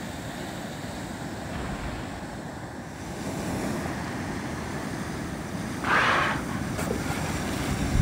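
Open sea water noise: a steady wash of waves, with a brief louder hiss about three-quarters of the way through.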